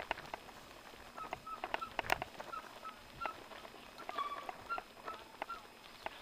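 Mountain bike rattling and clicking over a bumpy grass-and-gravel trail, with a sharp knock about two seconds in. Short high squeaks come irregularly through it.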